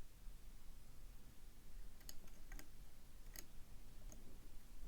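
Faint, sparse clicks of a lock pick working the pins of an MCM AS6 euro profile dimple cylinder, about five small ticks spread over the second half.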